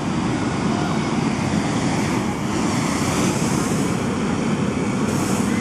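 Steady rumbling noise of a pushed child's trike rolling on an asphalt path, with wind buffeting the microphone.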